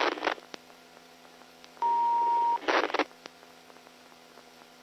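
Police two-way radio channel falling quiet between transmissions. A single steady beep of about three-quarters of a second sounds about two seconds in, then a short burst of radio noise.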